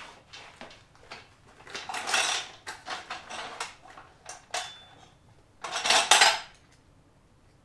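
Loose metal parts and hand tools clinking and rattling while a motorcycle fuel tank is fitted onto tank-lift brackets. There are several short rattles, the loudest about two seconds in and about six seconds in.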